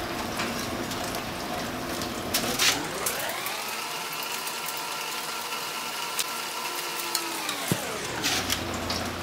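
A motor spins up with a rising whine, runs at a steady pitch for about four seconds and winds back down, over a steady patter of rain. A few sharp clicks come about two and a half seconds in.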